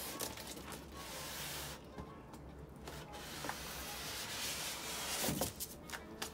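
Cardboard box rubbing and scraping against a styrofoam shipping box as it is pulled out, with a louder knock about five seconds in.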